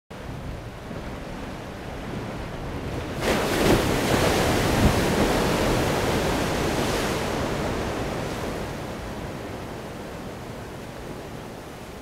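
Ocean surf: a wave breaks with a sudden crash about three seconds in, and its whitewater rushes and then slowly fades over a steady wash of surf.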